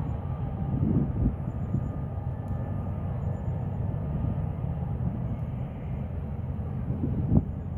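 Low outdoor rumble buffeted by wind on the microphone, swelling in gusts, with a sharper gust near the end.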